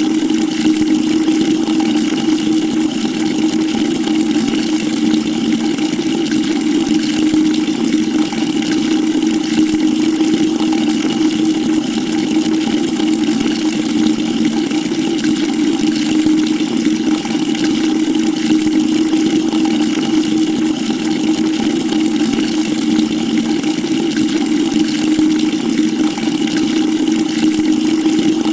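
Water running into a bucket: a steady rush of water with a low, even drone underneath.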